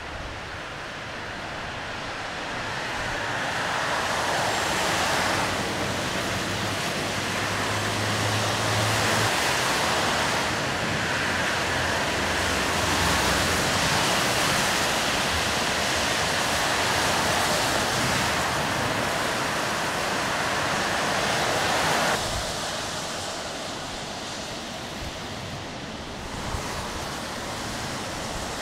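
City traffic on rain-wet roads: a steady hiss of tyres on wet asphalt mixed with vehicle engines. The hiss swells louder after a few seconds, with a low engine hum in the middle, and drops abruptly about 22 seconds in.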